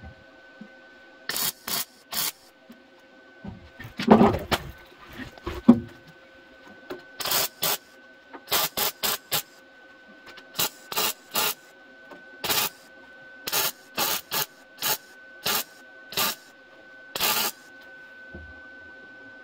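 Welder laying short tack welds on the sheet-steel rear inner wheel arch of a car body: about twenty brief bursts of sizzle in quick groups, with a louder knock about four seconds in and a faint steady whine underneath.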